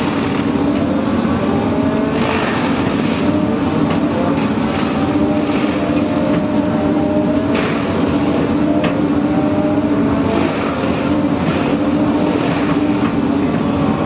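An engine running steadily at a constant speed, with a few sharp knocks or cracks over it.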